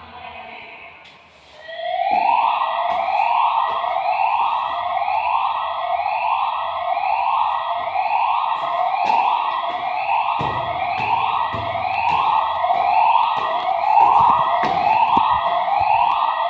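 Building fire alarm sounder that starts about a second and a half in and repeats a rising tone sweep roughly once a second.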